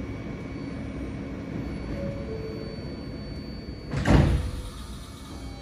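R160 subway car doors closing: a two-note falling door chime about two seconds in, then the sliding doors shut with a loud thump about four seconds in, over the steady hum of the standing train.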